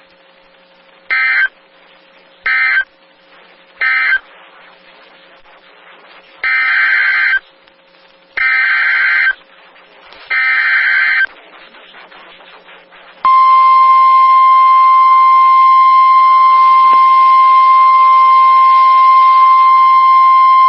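NOAA Weather Radio Emergency Alert System signalling. First come three short SAME data bursts, the end-of-message code closing the tornado warning. Then three longer SAME header bursts of about a second each announce the next warning, and about 13 seconds in the steady 1050 Hz warning alarm tone starts and holds.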